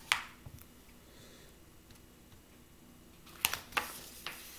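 Paper pages of a paperback coloring book being turned by hand: a short crisp rustle right at the start, then a few quick flicks of paper about three and a half seconds in as a page is flipped over.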